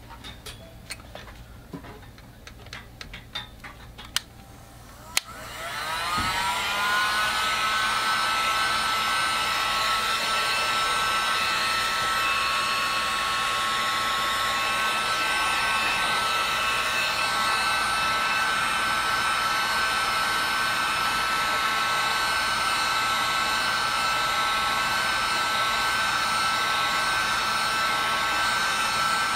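Hand-held blow dryer switched on about five seconds in, its whine rising as the motor spins up, then running steadily to dry a wet watercolor wash. Before it starts, a few light clicks and knocks of handling.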